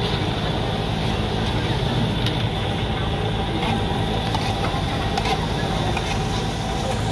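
Steady background of a busy outdoor street-food market: a continuous low rumble and hum with voices chattering in the background, and a few faint clicks.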